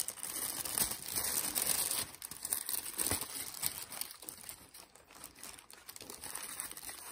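Crinkling and rustling of wrapping being handled as a necklace is unwrapped by hand: busiest over the first two seconds, then quieter and more scattered.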